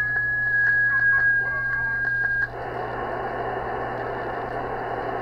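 Shortwave receiver audio from a software-defined radio: a steady whistle of a carrier tone with scattered clicks, drifting slightly lower in pitch, cuts off about halfway through and gives way to a hiss of band static, over a steady low hum.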